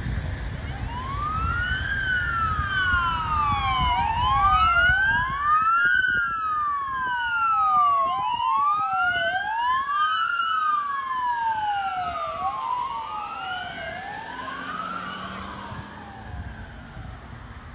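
Emergency vehicle siren wailing, its pitch rising and falling about every three seconds, with wails overlapping. It grows louder toward the middle and fades near the end.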